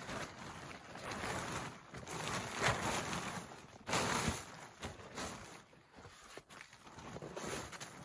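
Plastic poly tarp rustling and crinkling in irregular swells as it is pulled, flapped and folded by hand.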